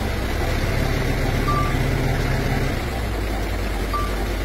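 Heavy diesel engine of a recovery crane truck running steadily. Two short faint beeps sound, one about a second and a half in and one near the end.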